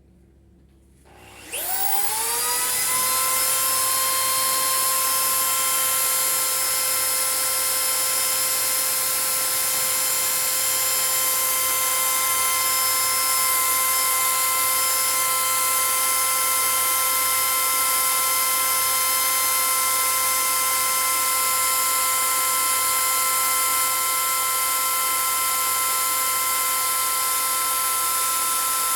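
Household electric drill starting about a second and a half in, its whine rising quickly to a steady high pitch, then running at constant speed while the bit bores into a concrete masonry piece.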